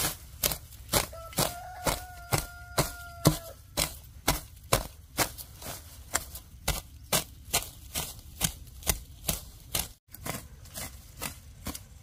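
A fast, even run of sharp chopping strikes, about two to three a second, with a brief steady tone over the strikes about a second in.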